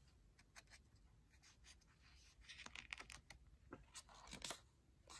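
Faint rustle and light ticks of a paper page of a picture book being turned, with a soft rustle near the middle and a few sharper ticks later.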